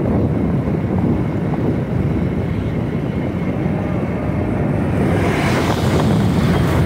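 Steady wind rushing over the microphone of a camera carried on a moving vehicle, mixed with the vehicle's running noise.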